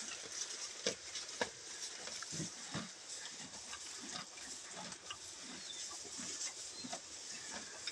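Cattle eating cut green grass from a trough: irregular rustling, tearing and munching as they pull and chew the fodder, with two sharper clicks a little after a second in.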